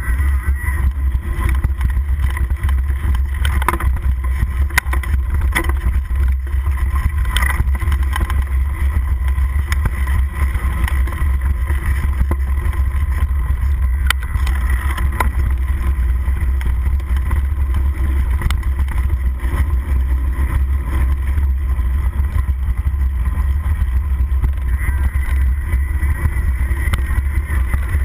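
Wind rumble on a handlebar-mounted camera's microphone as a mountain bike descends a dirt trail at speed, with the bike rattling and clicking over bumps.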